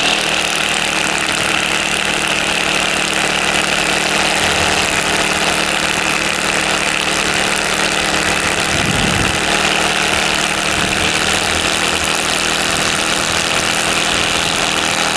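Brush cutter engine running steadily while its nylon-line cutter head spins 2.7 mm square nylon trimmer line against a rock.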